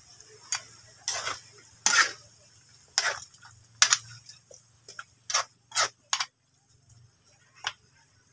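Metal spatula scraping and knocking against a wok as a pork, potato and carrot stew is stirred: about ten short, irregular scrapes.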